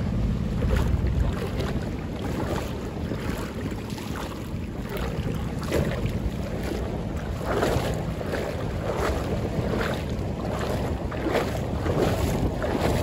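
Wind buffeting the microphone with a heavy low rumble, over choppy water sloshing and splashing in the shallows in irregular bursts that come more often in the second half.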